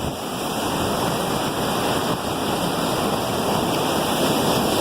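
Steady rushing of ocean surf and moving water, a constant wash of noise with no distinct breaks.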